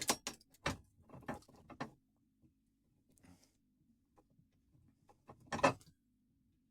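A key working a Yale two-lever mortice lock: a quick run of metal clicks as it turns, then a louder clack about five and a half seconds in.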